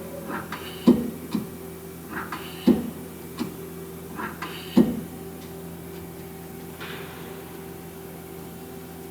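Mazak Quick Turn Nexus 250-II CNC lathe running under power with a steady hum. Three sharp mechanical clunks about two seconds apart fall in the first five seconds, then only the steady hum remains.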